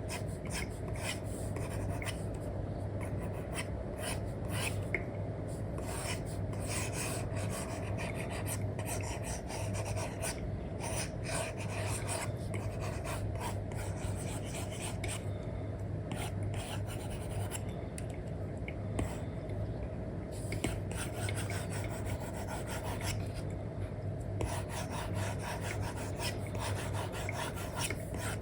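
Apple Pencil tip with an Elecom replacement nib scratching and rubbing across a paper-like matte screen film on an iPad, in quick irregular strokes while drawing. A steady low hum runs underneath.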